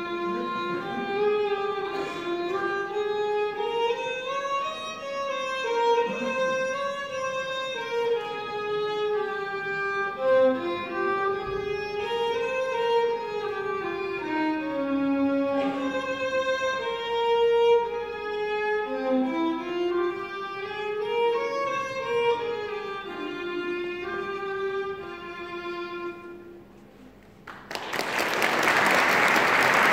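A violin playing a melody, with notes gliding up and down, until it ends about 26 seconds in. After a short lull, applause breaks out near the end.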